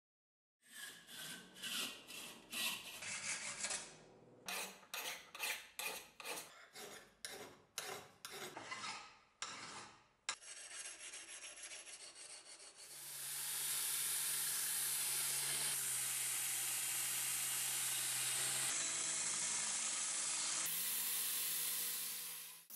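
Rhythmic hand strokes scraping and rubbing abrasive over a steel axe head, about two a second. About thirteen seconds in, a small belt grinder starts grinding the steel axe head steadily, a hum under a bright hiss, and this is the loudest part.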